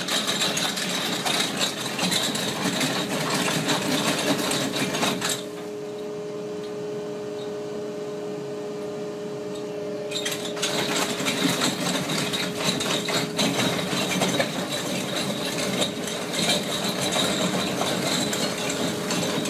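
A boom-mounted rotary pick cutter head grinding and crackling into rock over a steady motor whine. The grinding drops out for about five seconds in the middle, leaving only the whine, then comes back.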